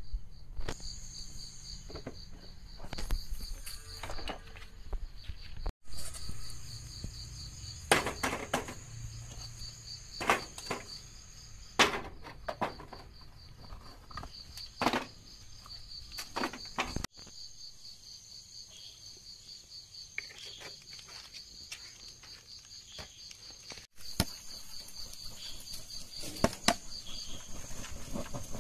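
Insects trilling steadily in a fast pulsing chirp. Scattered sharp knocks and clatters come from dry coconut shells being set down on hot charcoal. The sound breaks off abruptly three times.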